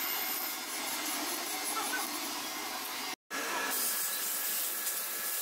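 Steady hissing workshop background noise with no clear knocks or tool strokes, cut off for a moment about three seconds in.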